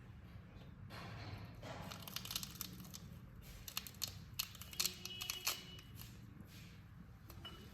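Crinkling, rustling handling noise with a run of sharp clicks, busiest from about one to six seconds in, over a low steady hum.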